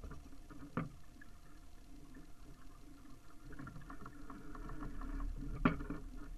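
Water lapping and trickling against the hull of a small sailboat under sail, with a patter of small ticks. Two sharp knocks come about a second in and, louder, near the end.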